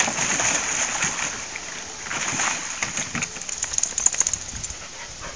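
Water splashing and sloshing in a plastic wading pool as a dog tramps through it, with a quick flurry of sharper splashes between about three and four and a half seconds in.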